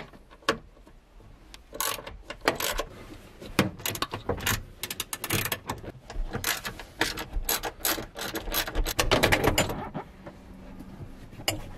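Socket ratchet clicking in short runs as the rear seat-back bolts are undone, with knocks and rustling as the seat back is handled and lifted out.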